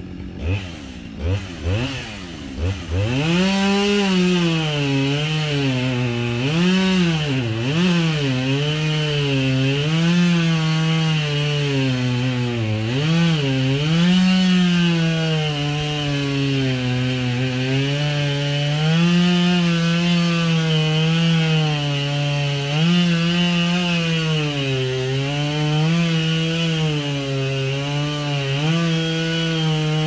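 Husqvarna 572 XP two-stroke chainsaw with a long bar: a few quick throttle blips, then about three seconds in it runs at full throttle cutting into a large tree trunk, the engine pitch sagging and recovering over and over as the chain loads up in the wood.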